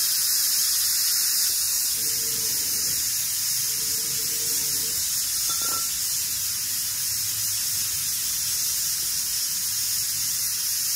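Pressure cooker letting off steam through its whistle: a steady, loud hiss that keeps going without a break.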